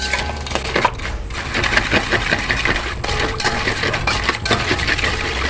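Metal spoon stirring palm sugar and water in a metal wok, scraping and clinking against the pan in quick, irregular strokes as the sugar dissolves.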